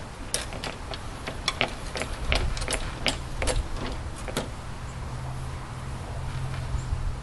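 About a dozen sharp, irregular clicks and knocks over about four seconds as the old lawn mower is handled before a start attempt, over a low steady hum.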